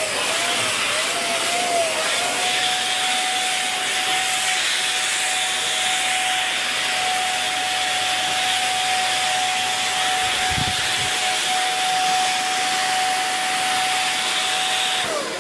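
Dyson Big Ball Animal cylinder vacuum cleaner running, a steady motor whine over rushing air. The pitch wavers in the first two seconds as the suction load changes, then holds steady. Near the end the whine drops in pitch as the motor is switched off and winds down.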